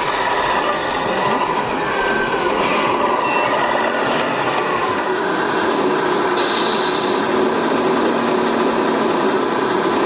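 Steady running noise of radio-controlled model construction machines, a MAN tipper truck and a wheel loader loading soil into the truck's trailer, with a brief higher hiss about six and a half seconds in.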